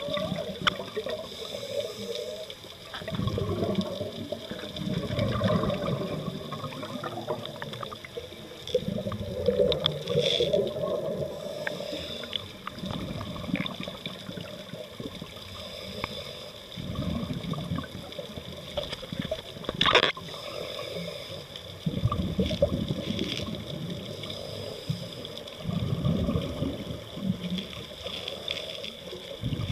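Water sloshing and gurgling against an underwater camera, coming in slow surges every few seconds, with one sharp knock about twenty seconds in.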